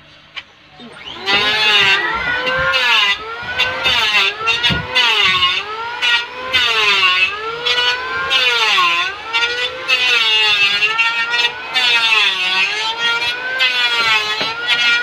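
Handheld electric woodworking power tool running on a plank, starting about a second in. Its high motor whine dips in pitch again and again as the tool is loaded into the wood, over a steady hiss of cutting.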